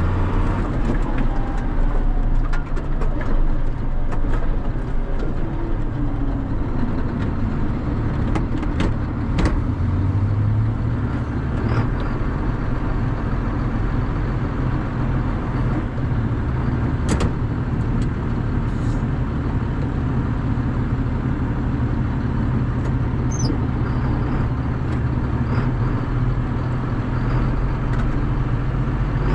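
A vehicle engine running steadily with a low drone as it drives, with a few sharp clicks about nine seconds in and again near seventeen seconds.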